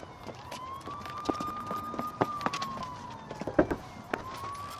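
Police siren wailing: one slow rising and falling tone that climbs, holds, dips about four seconds in and climbs again. Several sharp knocks and clicks are heard over it, the loudest about three and a half seconds in.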